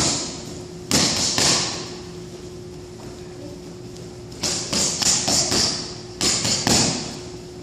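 Boxing gloves punching focus mitts in quick combinations: three flurries of sharp smacks, a short burst of about three early on, then a longer run of rapid hits a little past halfway, followed straight away by another burst of about three.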